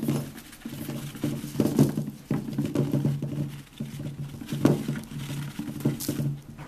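Chinchilla rolling and scrabbling in a dust bath inside a plastic dust-bath house: irregular bouts of scratchy churning with short pauses between them, and a few sharp knocks.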